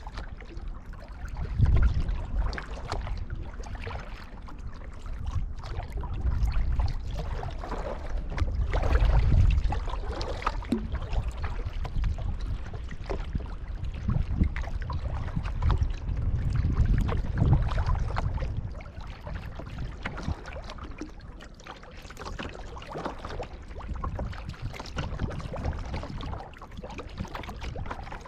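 Water splashing and lapping around a kayak as it is paddled, a steady wash of small splashes. A low rumble swells and fades several times.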